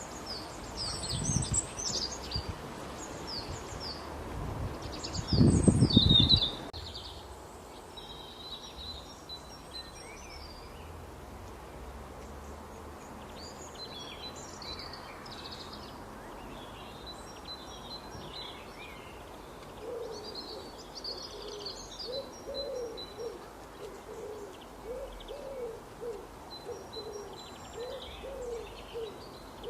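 Small birds chirping in high, scattered phrases, with two loud low rumbles in the first few seconds. From about two-thirds of the way in, a bird gives a low call again and again, roughly twice a second.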